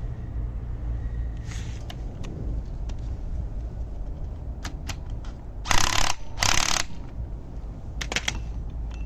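A gear puller being worked against a rusted motor pulley, giving scattered metal clicks, with two short, loud hissing bursts about six seconds in, over a steady low rumble.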